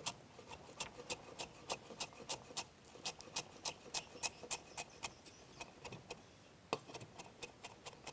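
Chef's knife finely chopping lemongrass on a wooden cutting board: a steady run of sharp taps, about three or four a second, with a pause of a second or so past the middle before the chopping picks up again.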